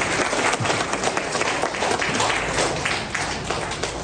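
Audience applauding in a large hall, many hands clapping at once, the applause thinning and fading near the end.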